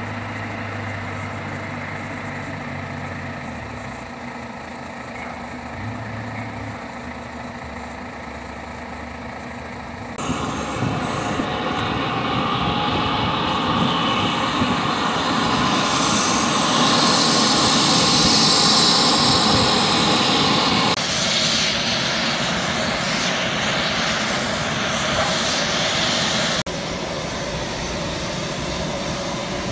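Low steady engine hum while an airport tug tows a Saab Gripen F-39E. About ten seconds in, the Gripen's General Electric F414 turbofan is heard during its first engine start: a loud jet rush and whine that builds to a peak and holds. Later the jet engine is heard more quietly as the fighter taxis.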